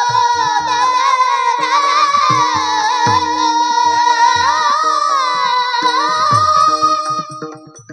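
Devotional kirtan singing: a high-pitched voice sings a long, ornamented line over a steady held tone and irregular low drum strokes, falling away shortly before the end.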